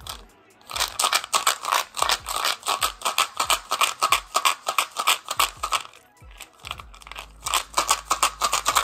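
Small plastic gum bottle shaken by hand, the pellets inside rattling in fast, even runs, with a short pause just after the start and another about six seconds in.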